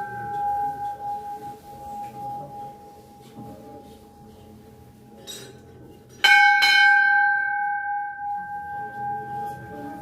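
Metal temple bell ringing: one ring is already sounding and fading at the start, and the bell is struck again about six seconds in, loudest there, its clear tone dying away slowly over the next few seconds.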